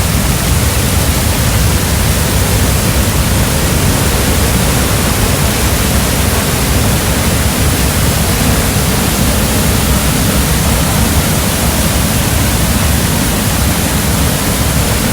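Waterfall: loud, steady rush of falling water close by.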